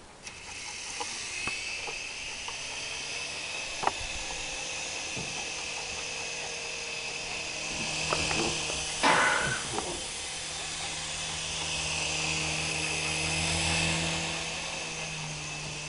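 Remote-control toy helicopter's small electric motor and rotor whirring steadily, swelling a little now and then. A few light clicks, and a brief louder burst about nine seconds in.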